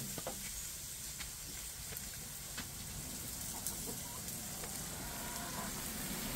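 Oil sizzling steadily in a frying pan, with a hen clucking faintly in the background.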